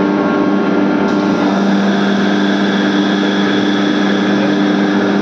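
An ELGi rotary screw air compressor running with a steady, loud hum. About a second and a half in, the sound changes as the compressor switches from loaded to unloaded running.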